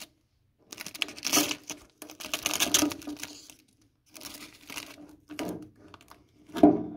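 Masking tape being peeled off a painted steel fuel tank and crumpled in the hand, in several separate spells of crinkling and tearing, the loudest near the end.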